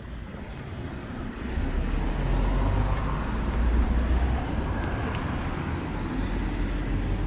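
A car passing close by: engine rumble and tyre noise swell about a second and a half in, are loudest through the middle, and stay up as more traffic moves through the junction.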